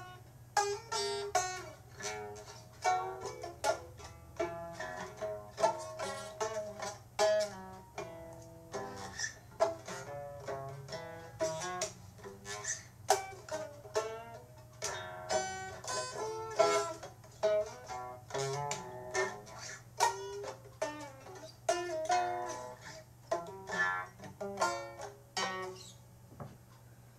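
A plucked string instrument playing a run of quick single notes and chords, each note sharp at the start and dying away. The playing stops near the end, leaving a faint steady low hum.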